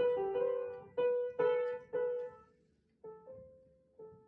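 A slow run of single piano notes, each struck and ringing away, with a short gap about halfway through.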